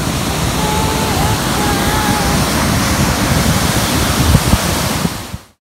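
Tahquamenon Falls: a steady, heavy rush of water pouring over the falls, fading out about five seconds in.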